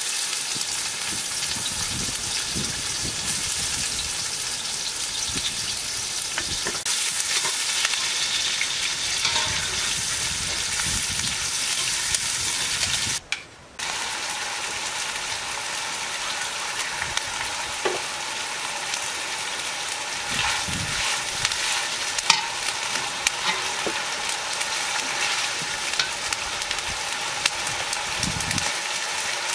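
Chopped onions sizzling steadily as they fry in hot oil in a steel karahi, with a few sharp clicks now and then. The sizzle breaks off for a moment about halfway through.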